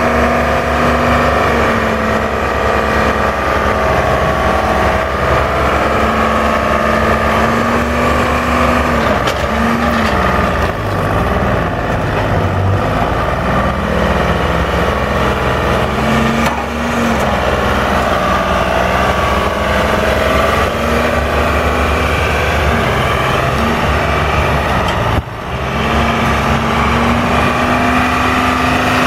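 Husky Brute XL200 log loader's engine running under hydraulic load while the grapple boom swings and lifts logs, its pitch wavering and sagging with each movement, then recovering.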